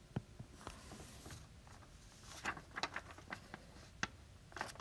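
Faint taps and scratches of a stylus writing by hand on a tablet's glass screen, a quick irregular run of small clicks.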